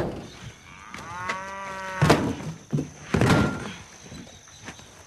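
A cow moos once, one call of about a second, followed by a few short knocks.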